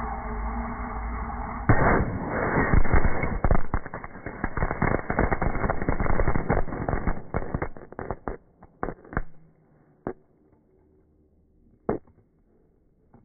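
Firework burning inside a glass bottle: a steady fizzing hiss, then about two seconds in a sudden loud burst gives way to rapid crackling pops for about six seconds. The pops then thin out to a few scattered ones.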